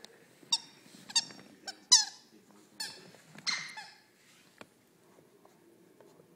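A puppy biting a squeaky toy ball, giving a quick run of short high squeaks, many sliding down in pitch, that stops about four seconds in.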